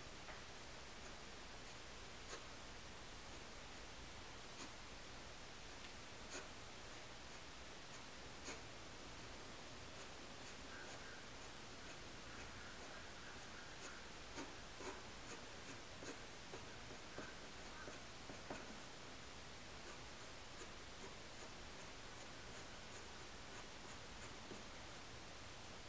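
Graphite pencil drawing on paper: faint scratching strokes over a low hiss, with scattered sharp ticks as the point strikes the paper. The ticks come a couple of seconds apart at first, then in a quicker run about halfway through.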